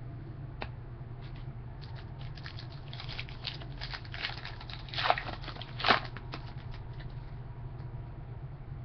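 A trading card pack's wrapper crinkling as it is handled and torn open, with two louder short rips about five and six seconds in.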